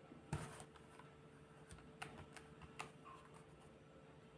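Faint, scattered light clicks with a brief rustle about a third of a second in: small handling noises of a locket being moved, otherwise near silence.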